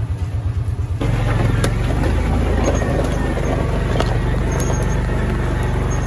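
Kawasaki utility vehicle's engine putting evenly at idle, then about a second in picking up and running louder as the vehicle moves off, with a few light knocks.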